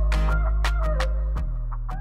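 Background music: a steady beat over a deep bass and a simple melody line, beginning to fade out near the end.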